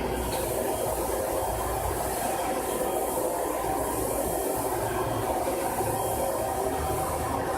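Industrial vacuum cleaner (Planet 140, anti-static) running steadily, a constant motor whir with rushing air that does not change in level.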